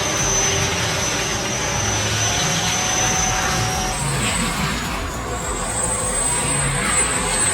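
Heavy forestry machine running steadily, with a low engine rumble under a high whine that steps higher about four seconds in.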